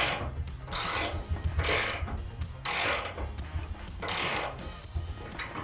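72-tooth ratcheting combination wrench clicking as its handle is swung back and forth: about five bursts of fast ratchet clicks, roughly a second apart.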